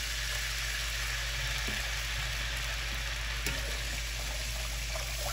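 Ham stock sizzling steadily in a hot enameled cast-iron Dutch oven as the pan is deglazed. A metal slotted spoon stirs through it in the second half with a few light clicks.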